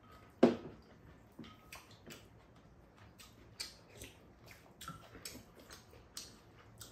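Spoons and chopsticks clicking and scraping against ceramic bowls as two people eat, a dozen or so light clicks with one much louder knock about half a second in.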